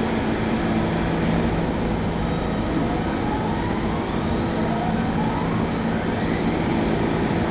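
R68 subway train running with a steady low hum under a noisy rumble, and a faint whine rising in pitch through the middle, as when the train picks up speed. The uploader calls the noise weird and wonders whether it is a mechanical problem.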